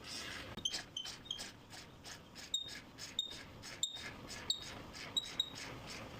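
A string of sharp metallic clicks and clinks, each with a brief high ring, about two or three a second, starting about half a second in. They come from metal hand tools working on motorcycle parts during a teardown.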